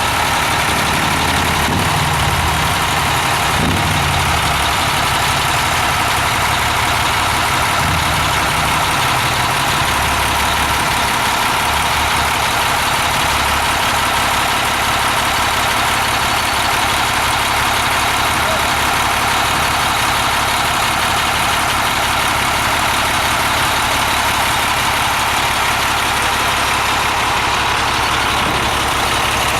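Cummins diesel engine of a motorhome idling steadily at close range, a loud, even running sound with a fast, fine pulse and no change in speed.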